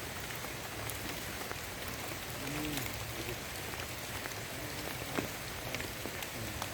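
Steady rain falling, an even hiss with sharp drop ticks scattered through it. A faint voice is heard briefly about two and a half seconds in.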